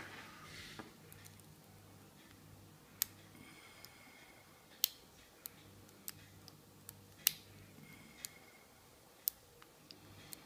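Lock pick and tension wrench working the pin tumblers of an American Series 30 four-pin padlock: irregular sharp metallic clicks, about seven louder ones among lighter ticks, with faint scraping of the pick between them.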